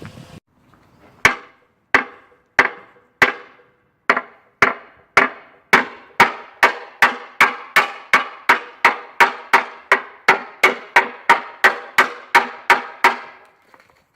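Sink over a washing machine struck hard again and again in an impact (crash) test: nearly thirty sharp knocks, each ringing briefly. They start slowly, then speed up to about three a second before stopping near the end.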